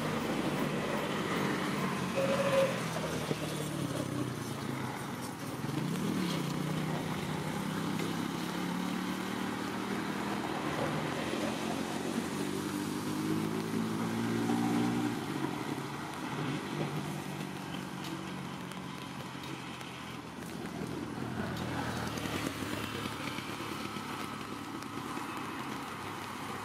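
A motor vehicle engine running on the road, its pitch climbing slowly for several seconds before fading about fifteen seconds in. A brief high squeak sounds about two seconds in.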